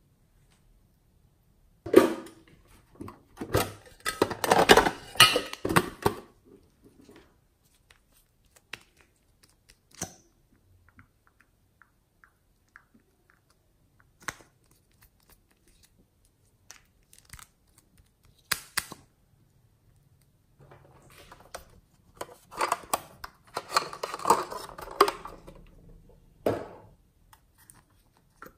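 Close-up handling of small plastic cosmetic bottles and lip-gloss tubes: scattered sharp clicks of caps and containers. There are two longer spells of crackly, crinkling noise, a couple of seconds in and again near the end.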